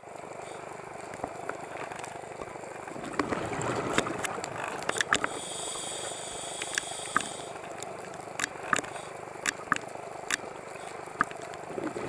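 Underwater sound of a scuba diver breathing through a regulator: a bubbly exhale swelling about three seconds in, then a thin high whistling hiss of an inhale around the middle, over a steady underwater hiss with scattered sharp clicks.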